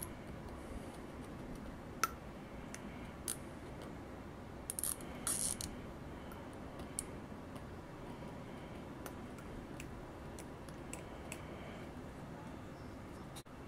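Light scattered clicks and short scrapes of a hand tool digging into a hard plastic action figure's elbow to free a snapped-off joint piece, over a faint steady hiss. The sharpest click comes about two seconds in, with a short run of scraping around five seconds.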